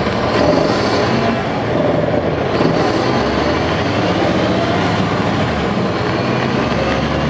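NABI 416.15 transit bus's Caterpillar C13 ACERT diesel engine idling steadily.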